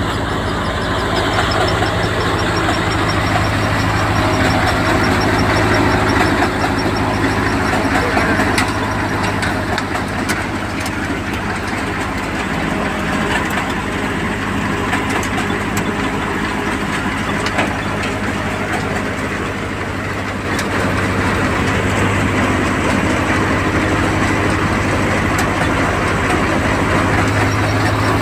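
Engine of a soybean harvesting machine running steadily: a low hum under a dense rush of machine noise, dipping slightly in level midway.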